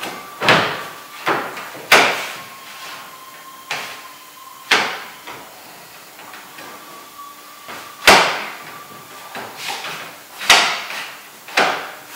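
Metal hinge rod knocking and clacking against the plastic wall panels of a Maxim 3000 portable restroom as it is pushed up through the hinge knuckles. About eight irregular knocks with a short ring after each, the loudest about eight seconds in.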